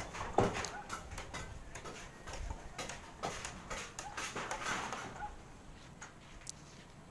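Irregular light taps and knocks from roofing work on corrugated galvanized iron sheets.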